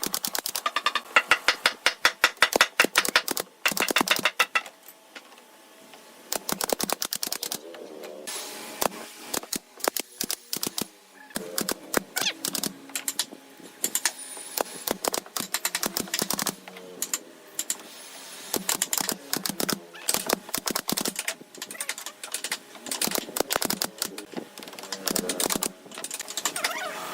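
Rapid runs of sharp clicks and knocks from work on wood. They come in quick trains of several a second for a few seconds at a time, with short gaps between, and are sparser and more irregular in the second half.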